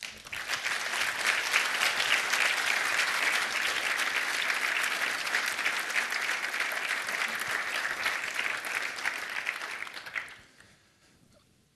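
Audience applauding: dense, steady clapping that lasts about ten seconds and then dies away.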